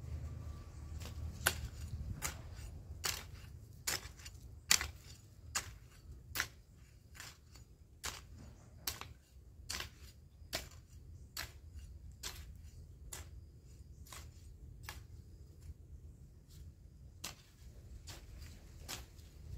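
Irregular sharp clicks and taps from hand work with garden tools, roughly one or two a second, over a faint low rumble.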